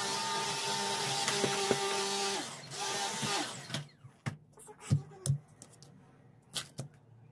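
Cordless stick vacuum cleaner running with a steady whine, switched off about three seconds in, its pitch falling away as the motor winds down. A few plastic clunks and knocks follow as the vacuum is handled and set down on the wooden floor.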